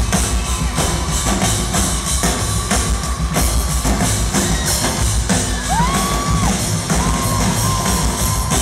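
Live drum kit played hard through a concert PA: a loud, busy beat of kick drum, snare and cymbal strikes. The crowd whoops, with one high whoop rising and holding briefly about six seconds in.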